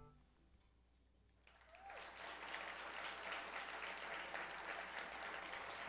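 After a brief hush, an audience breaks into applause about a second and a half in, building quickly to steady clapping.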